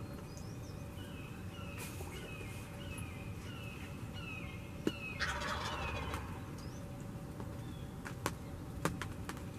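Wild turkey gobbler gobbling once about five seconds in, a rattling call that falls in pitch. Before it come a run of short falling bird notes and small high chirps, and a few sharp clicks sound near the end.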